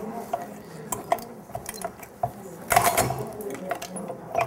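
Black walnuts being cracked in a strong lever nutcracker: scattered clicks and creaks of the mechanism and shell, with a louder crunching crack about three seconds in as a hard shell splits.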